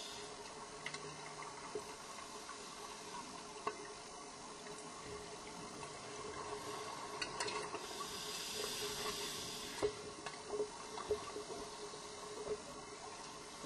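Scuba divers' exhaled air bubbles, heard underwater as a steady bubbling hiss. A stronger rush of bubbles comes about eight seconds in, with scattered small clicks and knocks of gear.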